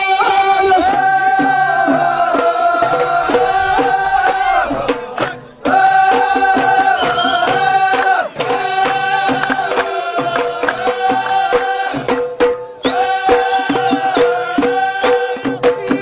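Ahwach music: men's voices singing long held notes over a steady beat of drums and hand claps. The singing breaks off briefly about five and a half seconds in and again about twelve and a half seconds in.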